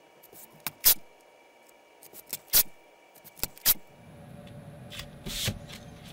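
Paper masking tape being laid on an MDF board: several short, sharp rips as strips are pulled off the roll and torn, then the rustle of hands rubbing the tape down from about four seconds in.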